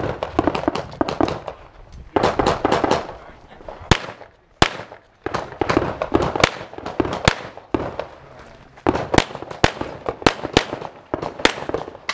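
Glock 34 firing 9mm rounds in rapid strings, mostly quick double taps, with short breaks between groups of shots; each crack is followed by a brief echo.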